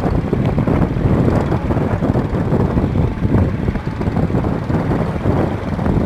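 Strong wind buffeting the microphone: a loud, uneven low rumble.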